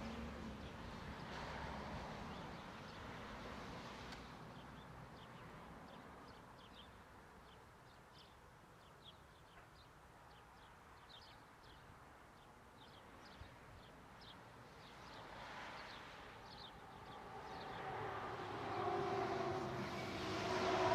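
Distant steam-hauled passenger train behind Norfolk & Western 611, a J-class 4-8-4, running with a low rumble that fades over the first few seconds. Short high bird chirps fill the quieter middle, and the sound grows louder again near the end, with a couple of steady tones.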